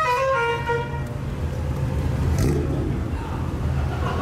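Musical air horn playing a descending run of notes that ends about a second in, over the steady low rumble of idling car engines.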